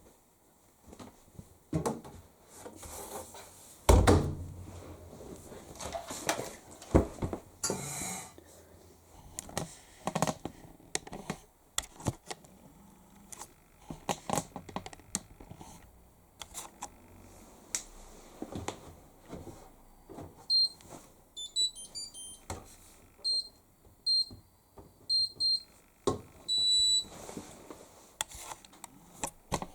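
Rustling and knocks of laundry being loaded into a Hoover Link X Care condenser tumble dryer. About two-thirds of the way through, the dryer's control panel beeps: a run of short high beeps as the Whites programme is selected, then one longer beep near the end as the cycle is started.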